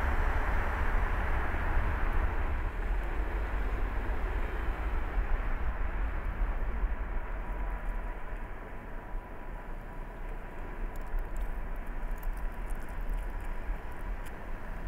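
A car driving, with a steady low rumble and road noise from the tyres that die down about halfway through as it slows. A faint steady tone is heard from then on.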